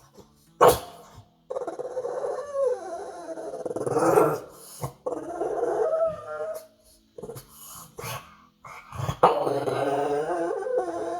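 A pug making long, wavering growling and whining vocal sounds in three stretches, with short pauses between them. A sharp knock comes just under a second in.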